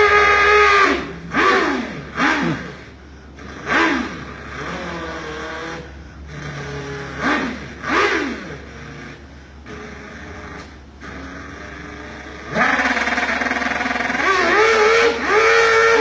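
A man imitating a Suzuki Hayabusa motorcycle engine with his mouth, hands cupped around it. A held engine note breaks into a run of short revs that rise and fall in pitch. About 12 to 13 seconds in it turns into a loud, sustained run whose pitch climbs and steps as if through gear changes.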